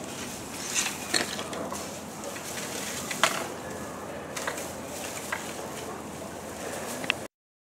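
Dry hay rustling and crackling as an Asian elephant pulls, tosses and eats it, with sharp snaps several times; the sound cuts off just before the end.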